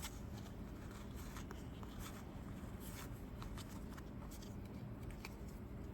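Faint rustling and small clicks of a foil booster pack and trading cards being handled and sorted, over a low steady hum.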